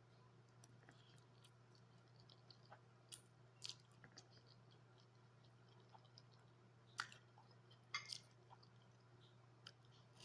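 Quiet chewing and wet mouth clicks of someone eating spaghetti close to the microphone, with a handful of sharper clicks, over a steady low hum.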